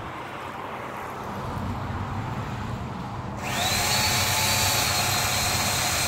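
Chainsaw revving up suddenly a little over halfway through, after a low rumble, then running steadily at high speed.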